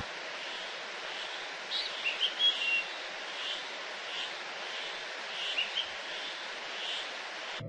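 Outdoor ambience: a steady hiss with a few short bird chirps, a cluster about two seconds in and a couple more near six seconds.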